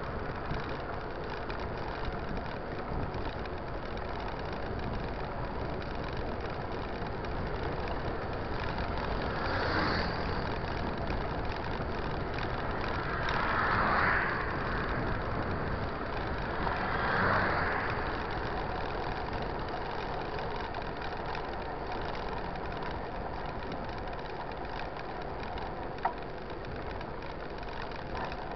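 Steady rush of road and wind noise while riding a mountain bike along a highway shoulder. Three vehicles pass on the highway, each swelling and fading, about a third of the way in and twice around the middle. There is a single sharp click near the end.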